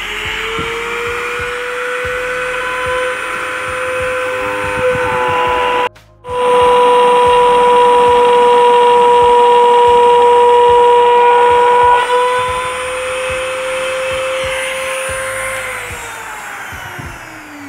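Mini rotary tool (mini grinder) running at high speed as it cuts through PVC pipe: a steady, high, loud whine. It breaks off for a moment about six seconds in, is loudest for the next several seconds, and winds down with falling pitch near the end.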